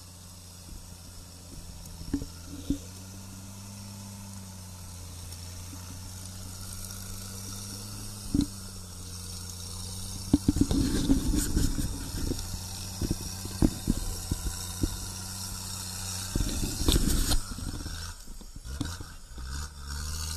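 Off-road 4x4's engine running steadily at low revs while the vehicle works over a muddy slope. From about ten seconds in, knocks, scrapes and crackling of mud and stones join it, loudest near the end.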